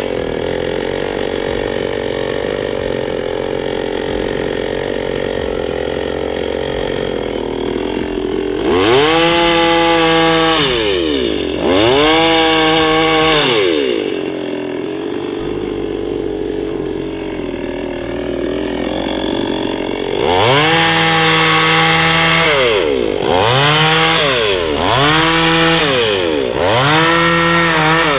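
Petrol chainsaw running, idling steadily at first, then revved up and let back down again and again, its pitch rising, holding briefly and falling, in quick succession near the end.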